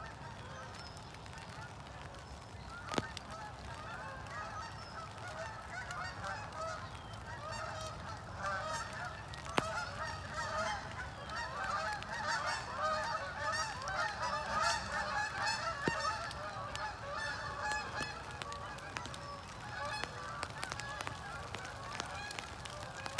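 A flock of geese honking on the water, many overlapping calls that build up a few seconds in and are thickest around the middle, over a steady hiss of rain.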